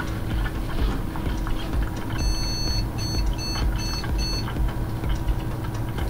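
ASUS Maximus VII motherboard beeping at power-on: one long beep followed by four short ones, over a steady hum from the running PC. It is a POST warning, which the builder traces to a CPU fan error.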